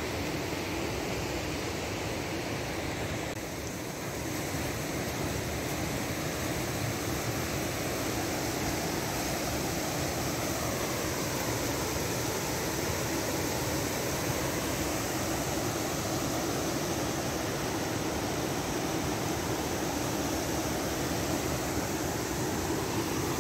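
Mountain stream rushing over rocks: a steady, even rush of water with no let-up.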